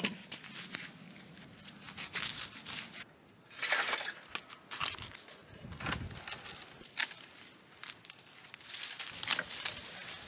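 Long-handled loppers snipping through thin tree branches: a series of sharp snaps and clicks, with rustling and crackling of twigs and dry brush.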